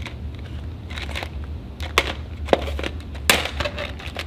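Clear plastic tube packaging of a craft kit being handled and pried open: rustling plastic with a few sharp clicks and snaps, the loudest about two and three seconds in.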